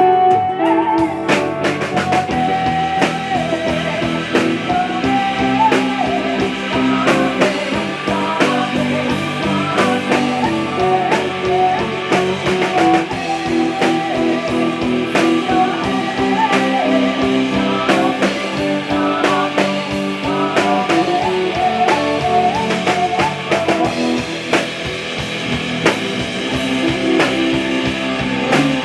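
Band music: a guitar playing a bending melody over a drum kit.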